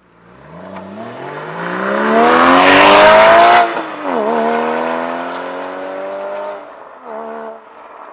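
Porsche Cayman GT4's flat-six engine accelerating hard, the revs climbing steadily and loudest after about three seconds, then an upshift about four seconds in, after which it pulls on in the next gear and fades away. A brief louder burst comes near the end.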